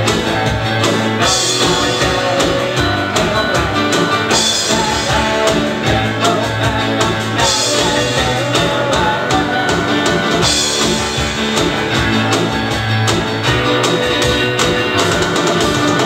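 Live rock band playing a stretch of the song without lead vocals: guitar and piano over a steady drum beat.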